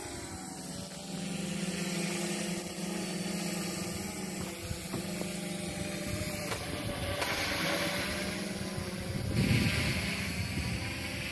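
Quadcopter built on an F450 frame with DJI Phantom 1 parts, hovering: its four electric motors and propellers give a steady buzzing hum. A brief low rumble comes through about nine seconds in.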